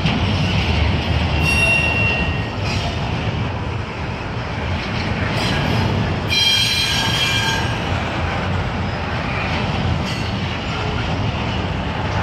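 Double-stack intermodal container well cars rolling past with a steady rumble of wheels on rail. A brief high wheel squeal comes about one and a half seconds in, and a louder, longer squeal about six seconds in.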